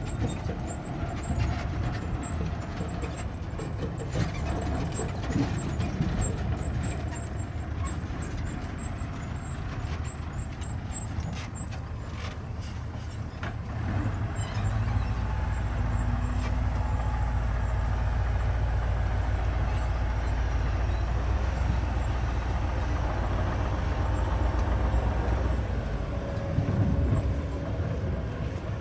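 Engine of a heavy diesel machine such as an excavator or dump truck running steadily, with scattered short knocks in the first half. The engine gets louder about halfway through.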